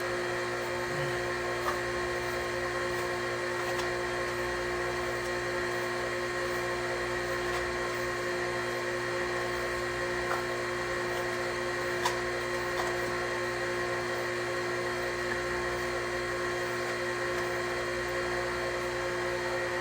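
A small electric motor running steadily with a constant high whine, with a few faint clicks over it.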